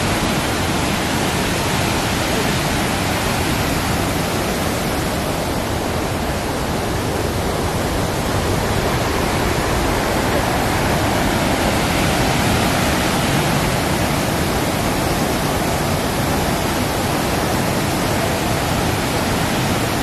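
The Great Falls of the Passaic River, a wide, high waterfall, rushing steadily as one constant wash of falling water.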